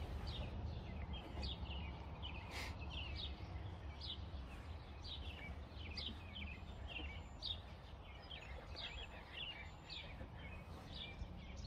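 Birds chirping in the background: many short, falling chirps over a low, steady rumble.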